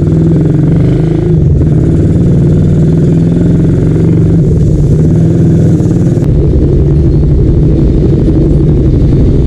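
Small motorcycle engine running steadily while riding, heard from on the bike.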